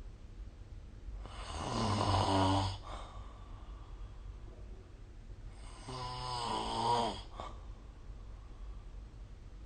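A person snoring in sleep: two snores, each about a second and a half long, roughly four and a half seconds apart, with quiet breathing spells between.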